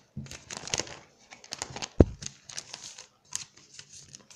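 Match Attax trading cards handled close to the microphone, rustling and crinkling in quick scrapes, with one sharp thump about two seconds in.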